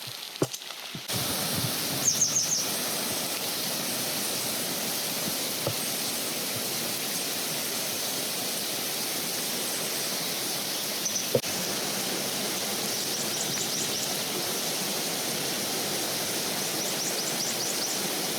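Steady rushing outdoor noise, starting about a second in, with a few short runs of high-pitched bird chirps and a couple of faint knocks.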